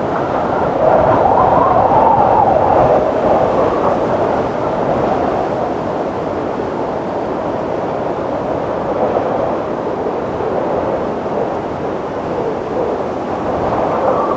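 Howling wind: a steady rush of air with a moaning tone that wavers up and down in pitch, swelling about a second in and easing slightly later on.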